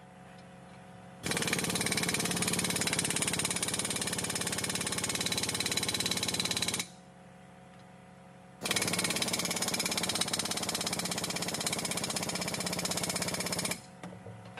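Pneumatic impact wrench hammering on nuts of a Hendrickson walking-beam suspension, in two long runs of about five seconds each with a short pause between.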